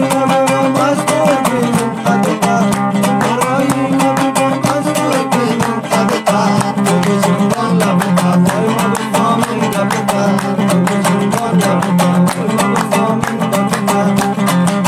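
Afghan dambura played with rapid, continuous strumming: a steady low drone under a wandering melody.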